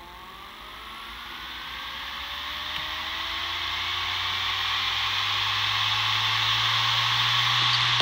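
Western Digital RE WD4000FYYZ 4 TB 7200 rpm enterprise hard drive spinning up from rest. A rising whine from the spindle motor and a growing whir from the platters get steadily louder, and a steady low hum sets in about halfway through as the drive nears full speed.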